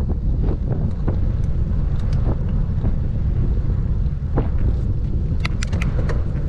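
Wind buffeting the microphone of a bike-mounted camera on an exposed climb, a steady low rumble. Scattered faint clicks run through it, with a quick cluster of sharp clicks about five and a half seconds in.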